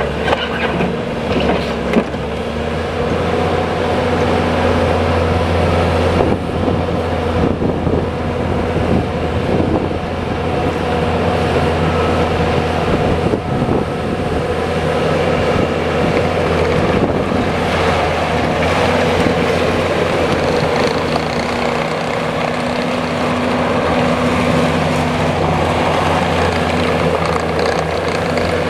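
Bobcat T590 skid steer loader's diesel engine running steadily for the whole stretch, with a few short knocks along the way.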